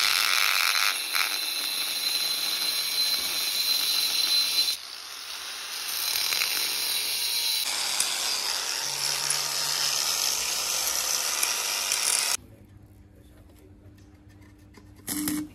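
Metalworking tool noise from fabricating a turbocharger mounting bracket: a steady, harsh hiss that changes abruptly a few times and cuts off suddenly about twelve seconds in. It is followed by a quiet low hum and a brief sound near the end.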